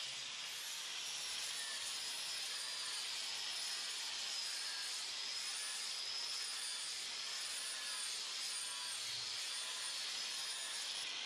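Electric power sander running steadily on log walls: a continuous high whine, wavering slightly in pitch, over a grinding hiss.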